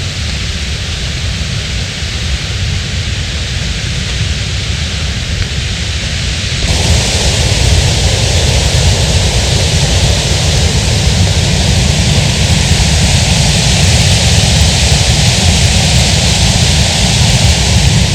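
A loud, steady rushing noise with a deep unsteady rumble underneath. About seven seconds in it jumps suddenly louder and brighter.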